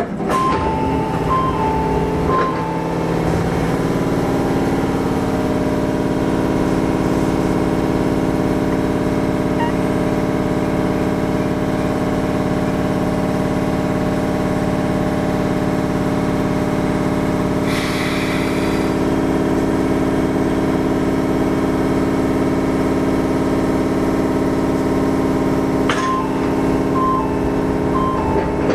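Izukyu 8000 series electric train running, heard from inside the car. A steady drone of several held tones over track noise sets in abruptly at the start.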